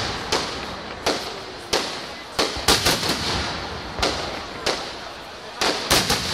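Aerial firework shells bursting overhead: about a dozen sharp bangs at irregular intervals, several coming in quick clusters, each trailing off in an echo.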